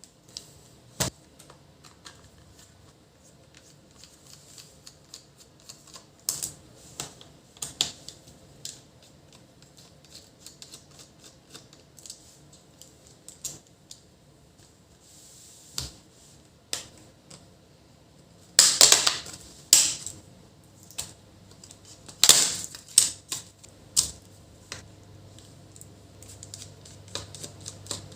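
Irregular plastic clicks and taps from an HP ProBook 440 G4 laptop being handled and taken apart, with two louder clusters of clicking a little past the middle.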